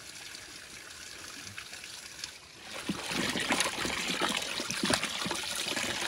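Water trickling steadily from a spout. About three seconds in it gets louder as it splashes into a metal pot and hands slosh and rub raw cow-head pieces in the water, with many short splashes.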